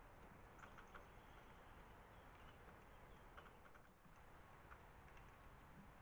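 Near silence: faint outdoor background hiss with a few scattered faint clicks and taps.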